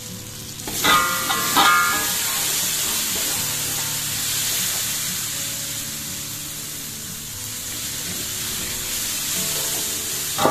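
Sauce sizzling in a hot wok while a metal spatula stirs it. The sizzle jumps up sharply about a second in, along with a few ringing clinks of the spatula against the pan, and then runs on steadily. There is another clink near the end.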